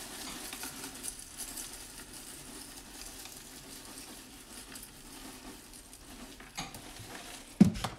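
Dry granola pouring from a plastic container onto oatmeal in a bowl: a steady light rustle and rattle of small clusters landing. A single sharp knock near the end.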